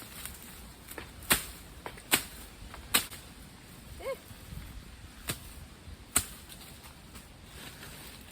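Bolo (machete) chopping into overgrown brush, five sharp strokes at uneven intervals.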